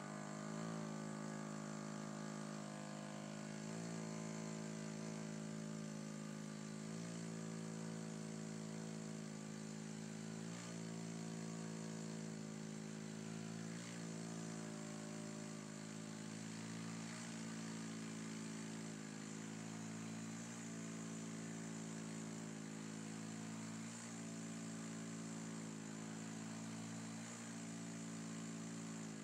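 CPAP mask giving off a steady pitched buzzing hum through the night, wavering briefly about every three and a half seconds.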